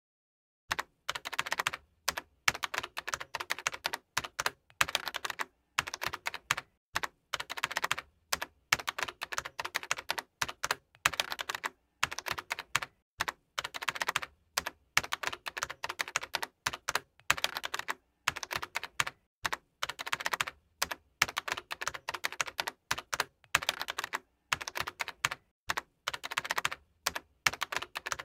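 Computer keyboard typing: rapid key clicks in runs of a second or two, broken by short pauses.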